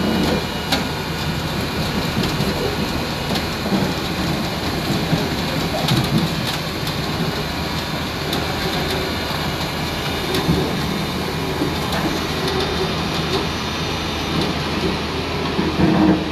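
Tracked hydraulic excavator's diesel engine running steadily, with scattered short metallic clanks and knocks from the machine's tracks and bucket as it works its way off a truck bed.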